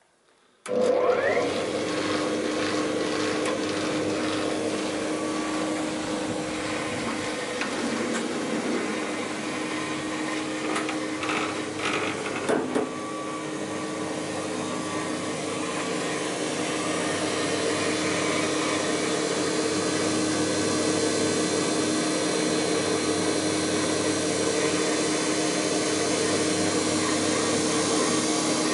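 Altendorf sliding-table panel saw switched on: its motor starts with a short rising whine as the blade runs up to speed, then runs steadily with an even hum and whir, no cutting. A few brief knocks come near the middle.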